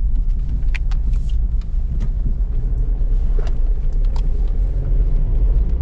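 Car cabin noise while driving on an unpaved dirt road: a steady low rumble from the tyres and engine, with scattered small knocks and clicks.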